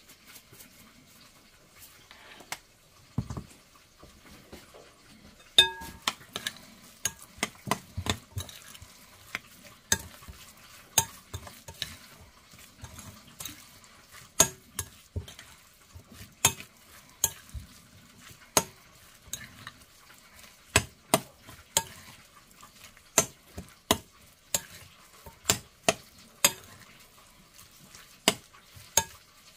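Metal spoon stirring a chunky stuffing mixture in a glass mixing bowl, clinking against the glass about once or twice a second with soft scraping in between. The first few seconds are quieter before the clinks begin.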